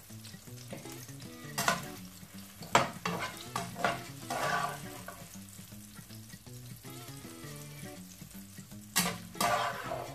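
Metal slotted turner scraping and knocking against a non-stick frying pan as scrambled egg with bell pepper is scooped out, in several sharp strokes with two close together near the end. Under it, a steady sizzle from the pan on the stove.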